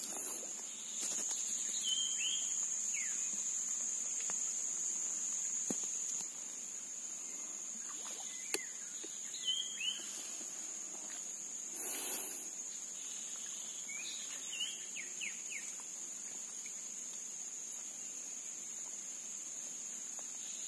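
Steady high-pitched insect chorus, with short bird chirps three or four times and a couple of faint clicks.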